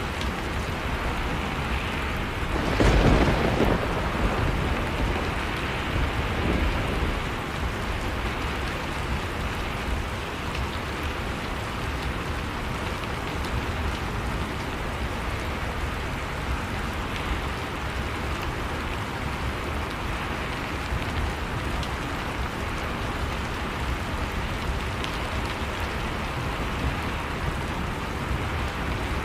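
Heavy rain falling steadily, with a loud clap of thunder about three seconds in and a weaker rumble a few seconds later.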